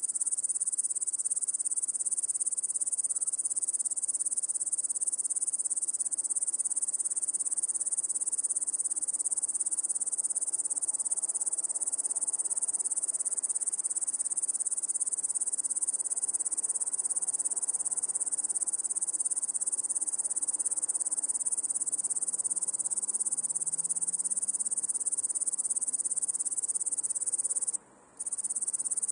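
A chorus of crickets chirping steadily and continuously in a high, shrill band. The chorus breaks off for about half a second near the end, then resumes.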